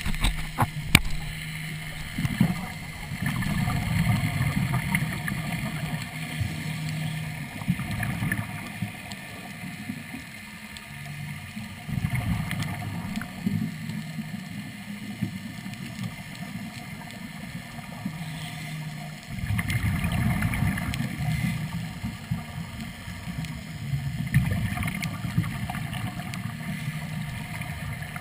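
Muffled underwater sound heard through a camera housing: the low rumble and gurgle of a diver's regulator breathing and exhaled bubbles, swelling in surges a few seconds long every several seconds, from a Third Lung hookah regulator.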